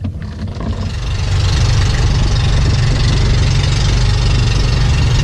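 Small fishing boat's engine running steadily, getting louder over the first second, with a loud rushing hiss over it.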